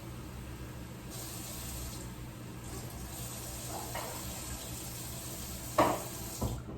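Water running steadily from a kitchen tap as cups of water are measured out for cooking rice. A sharp knock comes near the end.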